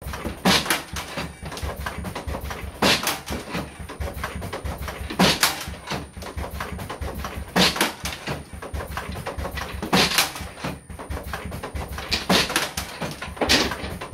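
Automatic stretcher-bar frame assembly machine (MHP VPLUG) cycling: a loud, sharp pneumatic burst roughly every two and a half seconds as each frame's corners are clamped and v-nailed. Lighter mechanical clicks come between the bursts, over a steady low machine hum.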